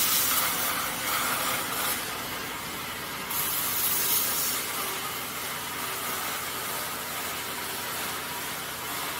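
The hydraulic lift of a vacuum dispersing mixer running as it raises the mixer head: a steady hissing machine noise with a faint hum. It gets louder briefly near the start and again a few seconds in.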